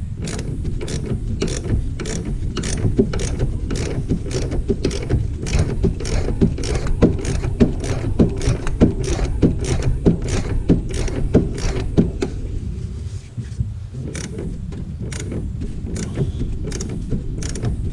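Hand ratchet wrench clicking as a bolt is turned in by repeated strokes, about three clicks a second. The clicking breaks off for a moment about two-thirds of the way through, then resumes more sparsely.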